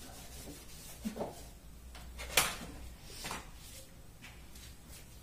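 Handling noise of a phone camera being picked up and repositioned: rubbing and rustling with a few knocks, the loudest a sharp click about two and a half seconds in.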